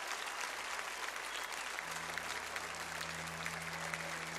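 Concert audience applauding, with a low steady hum coming in about two seconds in.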